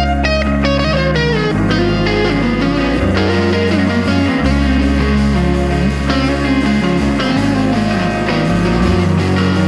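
Background indie rock song in an instrumental stretch: electric guitar lines over sustained bass notes, with no singing.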